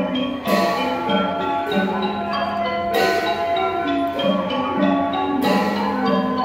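Thai piphat mon ensemble playing: mallet-struck xylophones and gong circles in a busy, ringing melody over a held low note, with a sharp crash about every two and a half seconds.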